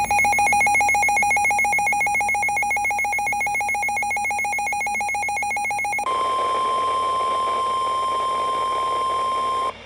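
NOAA Weather Radio alert tones: about six seconds of rapidly pulsing, warbling electronic data tones, then the steady 1050 Hz warning alarm tone, which cuts off abruptly near the end.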